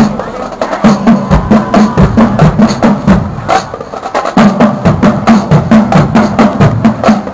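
High school marching drumline playing: rapid, crisp snare strikes over low, tuned bass drum notes in a steady driving rhythm.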